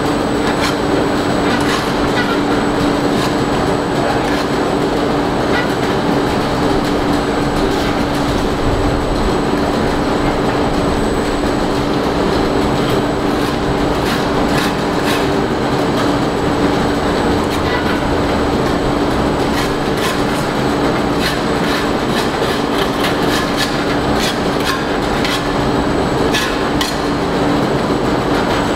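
Mortar 3D-printing equipment running steadily while the robotic arm extrudes a print: a constant machine noise with a steady low tone, and scattered light clicks and knocks that grow more frequent in the second half.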